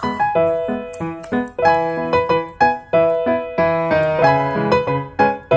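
Background piano music: a quick, even run of notes.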